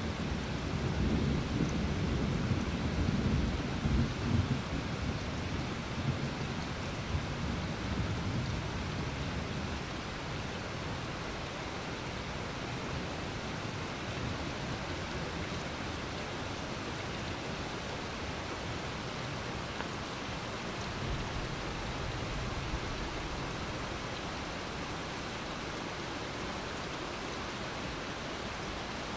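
Steady heavy rain falling on a lawn and trees. For the first nine seconds or so a low rumble of thunder rolls under it and then fades away, leaving only the even hiss of the rain.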